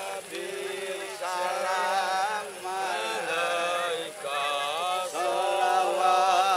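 A man's voice chanting an Islamic devotional melody in long, wavering held notes, phrase after phrase with short breaks between.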